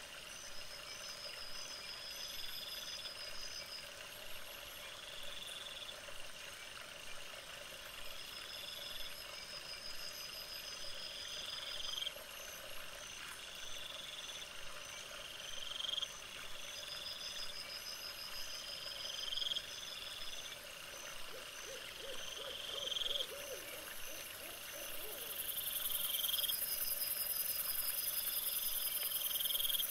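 Night chorus of insects, with short rising high-pitched calls and trains of rapid chirps repeating every couple of seconds. About 25 seconds in, a loud continuous high-pitched insect buzz starts and becomes the loudest sound.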